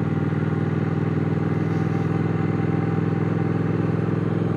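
Triumph Speed Twin's parallel-twin engine running at a steady cruise, its note holding an even pitch as the motorcycle rides along.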